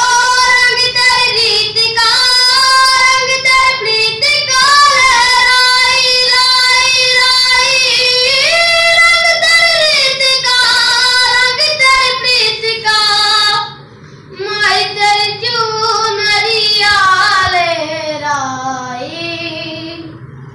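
A boy singing solo, unaccompanied, holding long notes that slide and waver in pitch. He breaks off briefly about two-thirds of the way through, then sings a phrase that falls in pitch and fades near the end.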